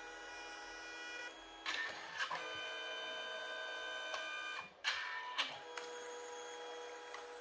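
Canon Selphy CP1300 dye-sublimation photo printer running its paper-feed motors with a steady whine, drawing the print back in between colour passes. The whine shifts pitch a couple of times, with a few sharp clicks of the mechanism about two seconds in and again about five seconds in.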